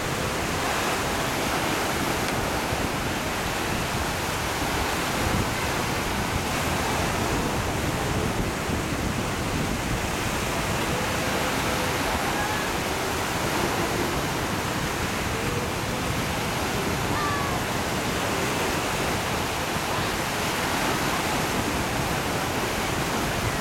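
Steady wash of small waves breaking and lapping along the shore and around moored wooden boats.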